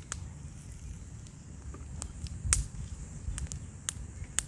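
Open wood fire crackling: scattered sharp pops and snaps, the loudest about two and a half seconds in, over a low rumble.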